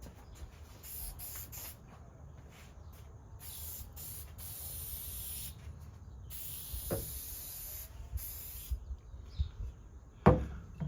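Aerosol can spraying shellac in several separate bursts of hiss, some short and some about two seconds long, as a coat goes onto the fan blades. A sharp knock comes near the end.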